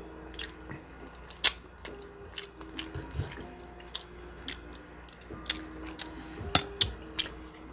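Close-up chewing and biting of chicken wings: irregular sharp mouth smacks and clicks, the loudest about one and a half seconds in.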